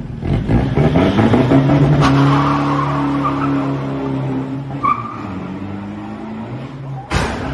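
Pickup truck's diesel engine revving hard as it pulls away, its pitch climbing over the first two seconds, holding, then sinking and fading as the truck draws off. A sharp thump near the end.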